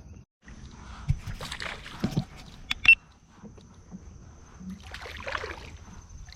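Small water splashes with knocks and clicks of gear being handled aboard a Tucktec folding kayak. A sharp click about three seconds in is the loudest sound.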